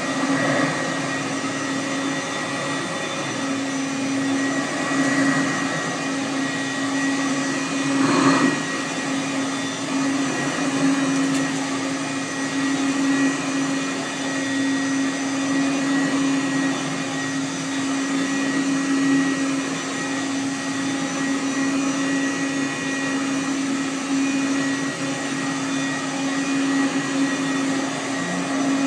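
Hoover Commercial U7071 upright vacuum cleaner running steadily, its motor hum holding one constant pitch over a rushing air noise, with one brief louder knock about eight seconds in.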